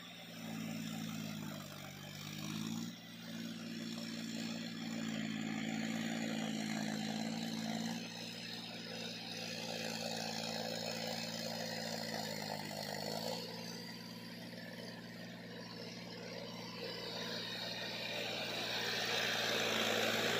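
John Deere 5050D tractor's three-cylinder diesel engine running under load while its rotavator churns waterlogged mud. The engine note dips and recovers about two seconds in, drops again about two-thirds of the way through, and grows louder near the end as the tractor comes close.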